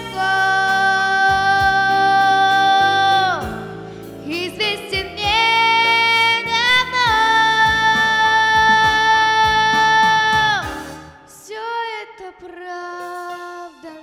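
A young girl singing two long held notes, each bending down at its end, over an instrumental accompaniment. Near the end her voice stops and the accompaniment plays on more quietly.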